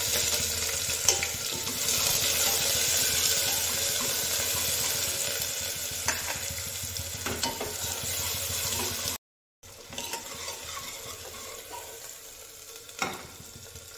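Chopped onions sizzling as they fry in hot mustard oil in a pot, stirred with a metal ladle, with a few sharp clinks of the ladle against the pot. The sizzle drops out for a moment about nine seconds in and comes back quieter.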